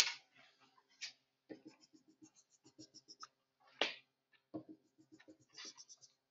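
Marker writing on a whiteboard: a run of short scratchy strokes, with a sharp tap right at the start and another about four seconds in.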